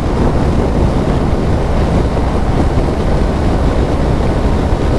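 Steady rush of wind on the microphone while riding a motorcycle at highway speed, with the bike's engine and road noise underneath. The sound is an even, low-heavy roar with no breaks.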